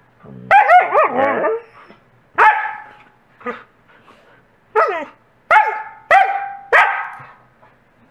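Wolfdogs barking and whining: a wavering whine that rises and falls in the first second and a half, then about five sharp barks, the last ones coming roughly every half second to a second.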